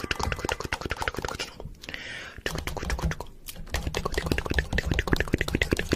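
Rapid, irregular clicking and tapping, with a short burst of hiss about two seconds in.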